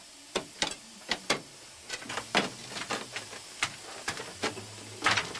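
Steel pry bar knocking and scraping against crystal-lined rock to work ametrine crystals loose from clay: an uneven run of sharp taps and clinks, two or three a second. A faint low hum sets in beneath about two seconds in.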